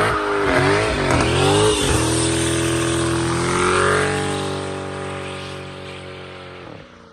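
Dodge Challenger Scat Pack's 6.4-litre HEMI V8 revving. It gives several quick blips of the throttle, then holds a steadier note that fades away.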